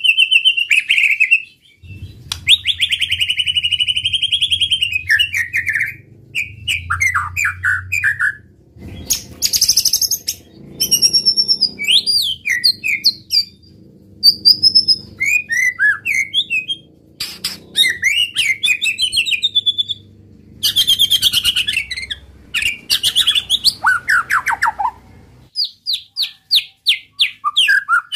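White-rumped shama singing a long, varied song: loud whistled phrases, rapid trills and sweeping rising and falling notes, one phrase after another with short breaks between.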